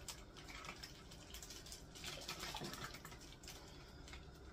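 Faint drips and small splashes of tomato liquid falling from a squeezed plastic bag of thawing diced tomatoes into a soup pot.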